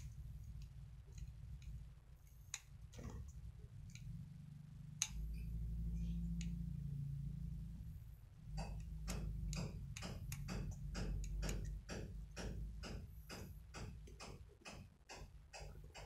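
Small precision screwdriver working the screws of a folding knife's metal handle. Scattered light clicks of metal parts in the first half, then a regular run of light clicks, about three a second, over a low steady hum.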